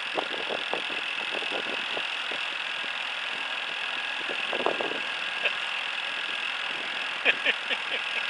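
A small fishing boat's motor running steadily, with scattered short knocks over it.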